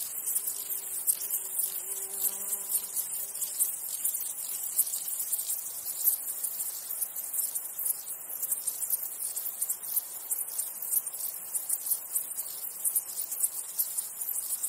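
Dense, high-pitched insect chirring, pulsing rapidly and evenly without a break.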